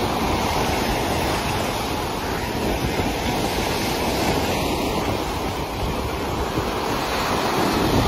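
Sea surf churning and washing over itself in a steady rush of foamy, broken water, with wind buffeting the microphone.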